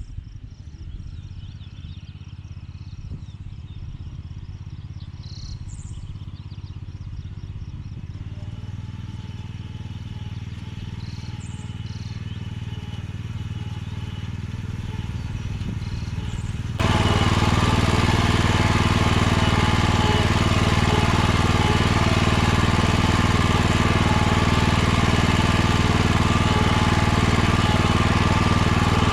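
Small engine running steadily, growing gradually louder, then abruptly much louder about two-thirds of the way through and holding there.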